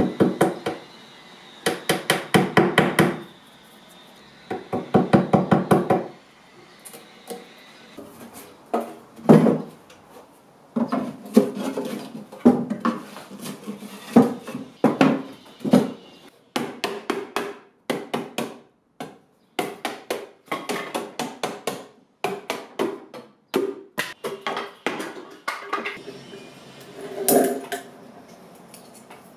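A hammer tapping a glued wooden peg into a hole in a wooden frame, in two quick runs of rapid taps. After that come irregular knocks, clicks and scrapes of hand tools working on a wooden drawer and its metal lock plate.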